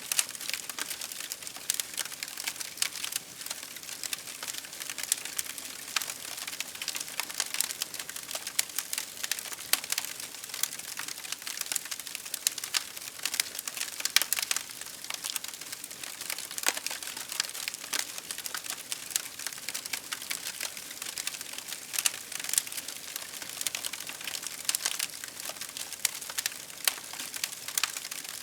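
Fireplace fire crackling: dense, irregular pops and snaps over a soft steady hiss.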